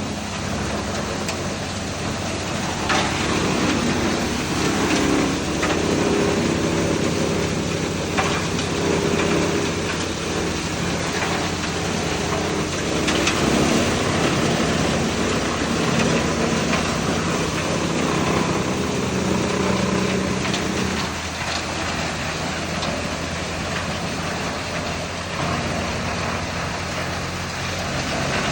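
Machine engine running steadily under a dense rattling hiss, with a few sharp knocks.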